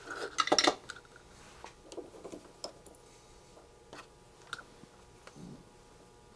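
A short clattering rattle about half a second in, then scattered light clicks and taps, from solder, wire and a small vise being handled while wires are tinned.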